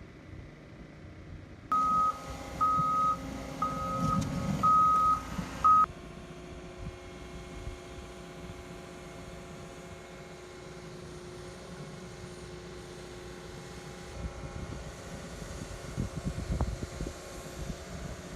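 A construction vehicle's reversing alarm beeping about once a second for a few seconds over engine noise. The sound then gives way to a heavy machine's engine running steadily, with a few knocks near the end.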